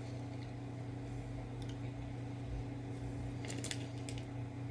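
Steady low hum of room tone, with a few faint short clicks about three and a half seconds in.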